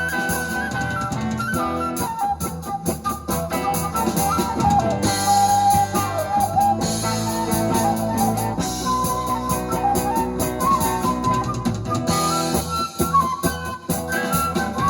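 Rock band playing an instrumental break: a flute carries the melody over electric guitar, bass and drum kit. The cymbals get heavier from about a third of the way in until near the end.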